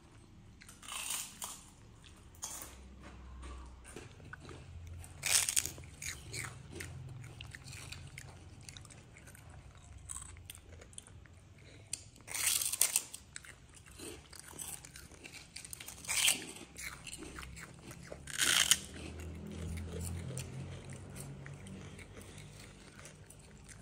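A baby monkey biting and chewing a crisp fried cracker up close: a string of sharp crunches, about five louder bites among smaller crackles of chewing.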